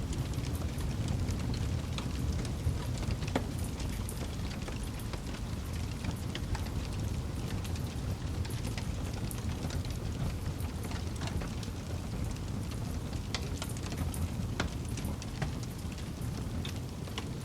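Campfire wood burning: a steady low rush of flame with frequent sharp crackles and pops scattered throughout.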